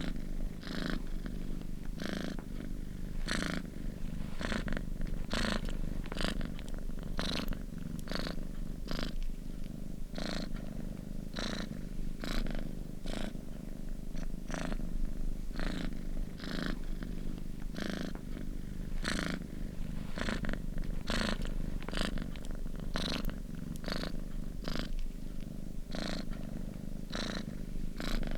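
Domestic cat purring steadily, a low continuous hum that swells in a regular rhythm of repeated pulses.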